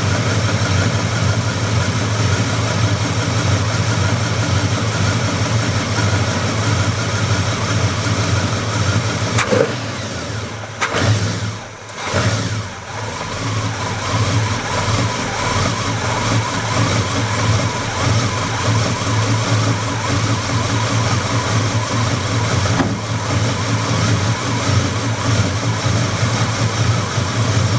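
Buick 350 V8 engine running, with the knock that the owner is documenting. The sound drops off briefly about ten to thirteen seconds in, then picks back up and runs on steadily.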